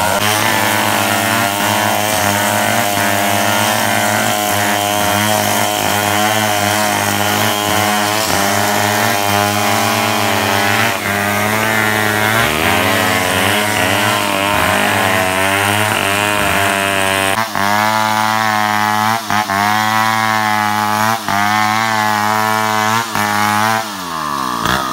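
Two-stroke chainsaw running at high revs while cutting wood, its pitch wavering and dipping several times under load. Near the end the throttle is released and the engine note falls away sharply.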